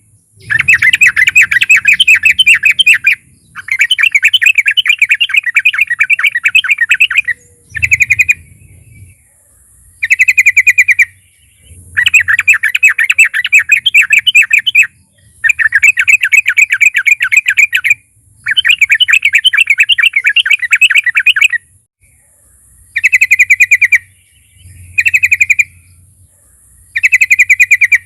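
Yellow-vented bulbul singing loud bursts of rapid, chattering repeated notes. The phrases run from half a second to several seconds long, with short pauses between them.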